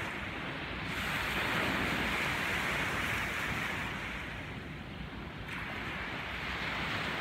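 Small waves breaking and washing up on a sandy shore, the surf swelling, easing about four seconds in, then building again, with wind rumbling on the microphone.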